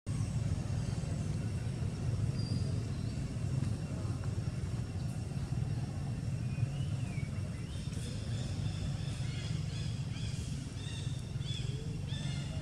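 Steady low outdoor rumble, with a run of short, high, downward-gliding chirps starting about two-thirds of the way in.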